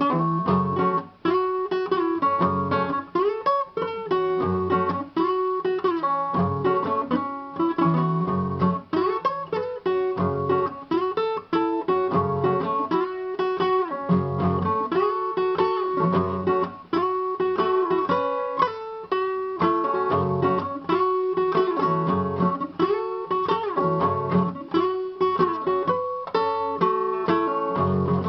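Acoustic guitar music: a steady stream of plucked notes over recurring bass notes, with no break.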